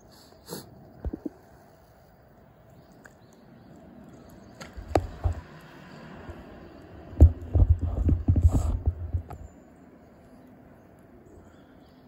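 Handling noise from a smartphone being moved and re-aimed: low rumbling bumps and sharp knocks, a short bout about five seconds in and a longer, louder one from about seven to nine and a half seconds in.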